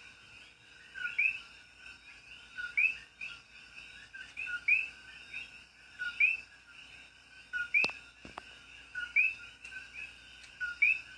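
Several common coquí frogs calling their two-note "co-quí": a lower note followed by a higher, rising one, repeated about once a second by overlapping callers. A sharp click is heard about eight seconds in.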